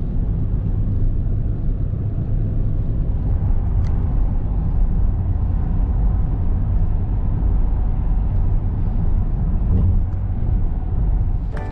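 Car driving, a steady low road-and-engine rumble.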